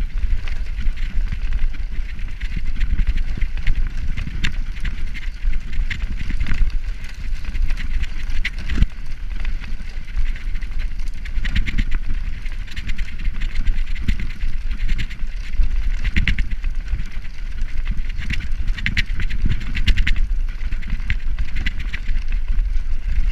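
Road bike rattling over cobblestones: the tyres and frame clatter in a fast, unbroken run of knocks over a steady low rumble.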